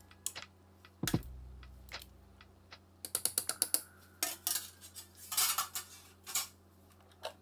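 Metal kitchen tongs clicking and clattering against a metal cooking pot as pieces of duck are set into it. There are a few separate clicks, a quick run of clicks about three seconds in, then several longer scraping noises.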